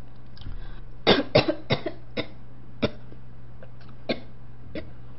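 A woman coughing in a run of short, sharp coughs, several in quick succession at first, then a few more spaced out.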